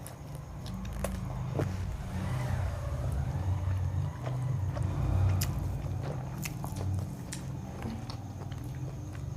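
Close-up biting and chewing of chilli chicken and fried rice, with scattered sharp clicks and a low rumble throughout.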